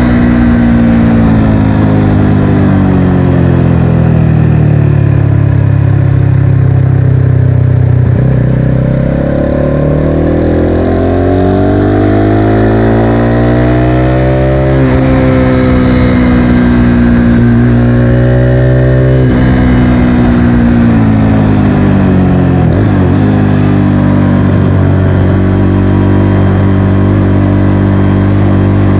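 Motorcycle engine under way, its revs falling, then climbing for several seconds, with sudden drops in pitch about halfway through and again a few seconds later as gears change, before settling to a steady note near the end.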